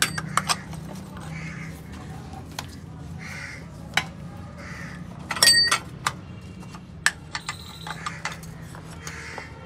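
Metal clinks and knocks of a socket wrench and T-bar being worked on bolts under a car. The loudest is a ringing metallic clatter about five and a half seconds in. A crow caws repeatedly in the background, about once a second.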